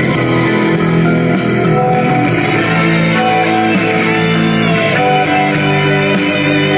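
Jinlong JL-1938 8.5-inch Bluetooth karaoke speaker playing music loudly.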